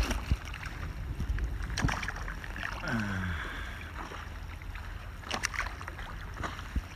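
Stand-up paddleboard on a lake: water lapping and sloshing against the board, with a couple of sharp knocks or splashes from the paddle, over a steady low rumble.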